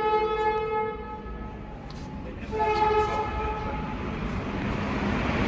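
Train horn sounding two long, steady blasts, the first ending about a second in and the second starting about halfway through. A rushing noise builds near the end.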